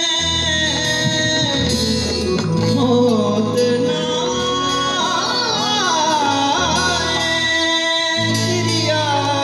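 Background music: a singer's ornamented, wavering melody over long held bass notes that change every second or so.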